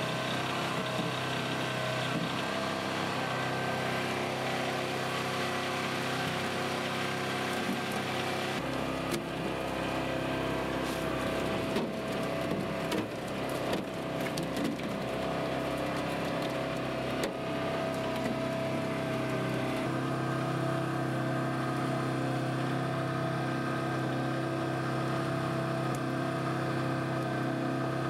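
Steady drone of a herring gillnet boat's engine and hydraulic net reel running. In the middle stretch, scattered sharp taps and slaps come through as herring flop on the metal deck plating.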